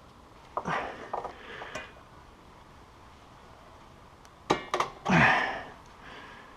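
Metal tools and parts clinking and scraping in two short bursts, about a second in and again about five seconds in.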